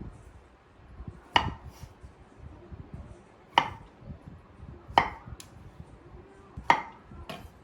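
Kitchen knife coming down on a cutting board in four slow, separate chops, with soft handling noise between them.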